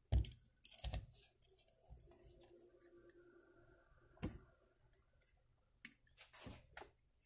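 Faint scrapes and clicks of a hand peeler taking the skin off a very ripe papaya, a few separate strokes spread out with pauses between them.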